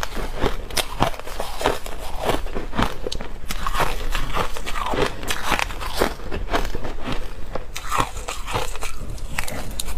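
Crushed ice being eaten close to the microphone: crunched between the teeth in a dense run of sharp crunches, several a second.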